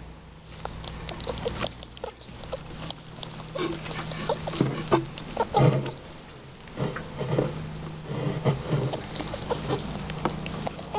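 Rabbit nest of straw and pulled fur rustling and crackling as a hand parts it to uncover the kits: irregular quick crackles over a low steady hum.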